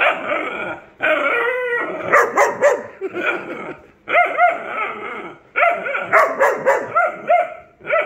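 Great Dane puppy 'talking' in play: repeated barks and yowls that bend up and down in pitch, in quick bouts with short breaks about one second and four seconds in.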